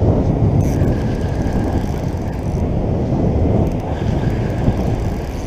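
Wind rumbling on the microphone over breaking surf. A faint thin whirr comes twice from the spinning reel while a hooked fish pulls line out.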